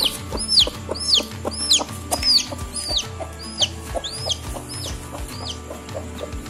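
Newly hatched chick peeping over and over: high calls that rise briefly and then fall, about two a second.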